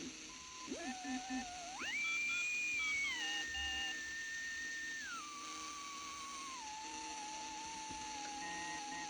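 Simple direct-amplification radio receiver whistling as it is tuned between stations: one whistle that rises, jumps high about two seconds in, then steps down in pitch over the next few seconds and climbs a little near the end, over a faint hiss. It is the heterodyne whistle of a station's carrier heard while tuning.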